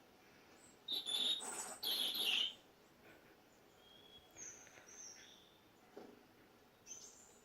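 Birds calling: two loud chirping calls close together about a second in, then fainter, higher calls around four to five seconds in and a short one near the end.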